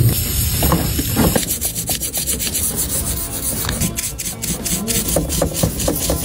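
A quick run of rubbing, scraping strokes, hand work on a part.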